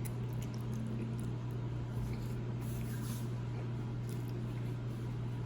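Faint, irregular chewing and mouth sounds of someone eating spaghetti, with small scattered clicks, over a steady low hum.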